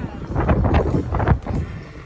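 Wind buffeting the microphone on the open deck of a moving cruise ship: loud, uneven gusts of low rumble.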